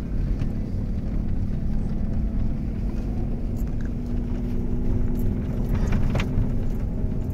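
Jeep Wrangler Rubicon driving on a snowy dirt trail, heard from inside the cabin: the engine running steadily under a low tyre and road rumble, with a few light knocks, the sharpest about six seconds in.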